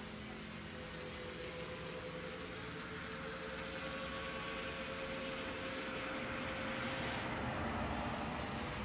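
Quadcopter's four Turnigy brushless motors and propellers humming steadily in flight, growing gradually louder toward the end.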